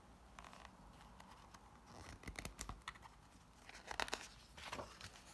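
Paper rustling and soft crisp clicks as the page of a hardcover picture book is handled and turned, in short clusters about two seconds in and again around four seconds in.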